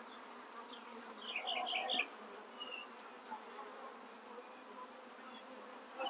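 Honey bees buzzing steadily around an open nuc hive and the frame of bees lifted out of it, a faint, even hum. A short run of high chirps comes about a second and a half in.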